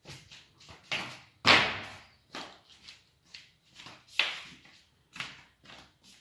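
A child's bare feet landing and stepping on a hard marble-tiled floor: a series of sharp thumps, the loudest about one and a half seconds in, each with a short echo.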